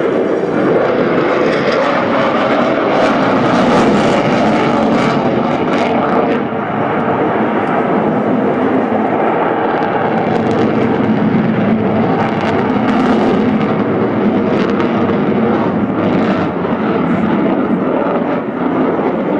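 Twin jet engines of a Sukhoi Su-35 fighter, a loud, continuous roar as it manoeuvres overhead. The roar swells and eases in level, with a brief dip about six and a half seconds in.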